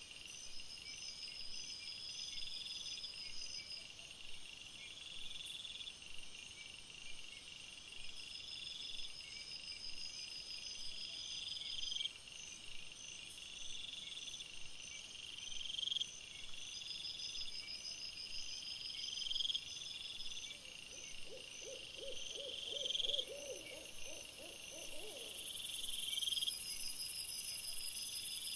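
Night insects chirping in regular repeating bursts. About three-quarters of the way through comes a few-second run of quick, low, hoot-like call notes, and a high hiss swells near the end.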